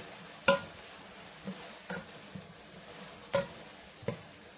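A cooking utensil knocking and clinking against a pot several times as vegetables stewing in a little broth are checked and stirred, over a steady hiss of the pot cooking. The loudest knocks come about half a second in and about three and a half seconds in.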